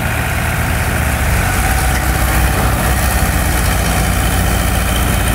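Heavy diesel engine idling steadily, a deep, even sound.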